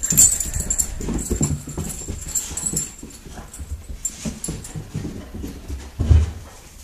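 Excited dogs at feeding time: dog sounds over a run of irregular thuds and scuffles, with one loud thump about six seconds in.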